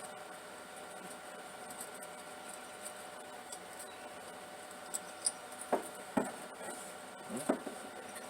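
Hand tools clicking and scraping on metal, likely while a spark plug is worked out of the slant-six engine. A few light clicks come about five seconds in, followed by three short squeaks over the next two seconds, over a faint steady hum.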